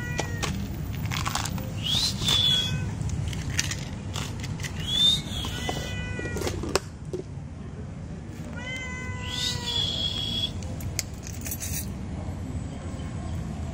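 Domestic cat meowing several times, short calls a few seconds apart, over a steady low background hum.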